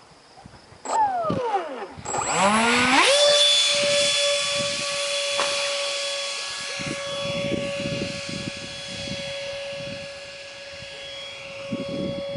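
Ducted fan of a scratch-built F-18 model jet winding up: a short falling whine about a second in, then a rising whine that settles about three seconds in into a steady high-pitched whine that slowly fades. Wind buffets the microphone in low rumbles.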